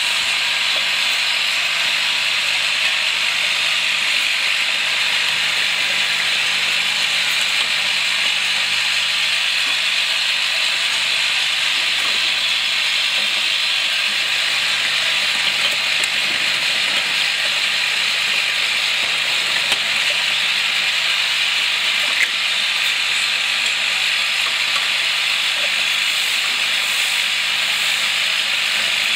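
Four-head flat-bottle filling machine line running: a steady hiss over a faint low hum, with a couple of small clicks late on.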